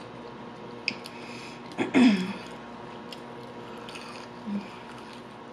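Close-miked eating: a fried onion ring bitten and chewed, with a sharp click about a second in and a short, loud vocal sound falling in pitch about two seconds in.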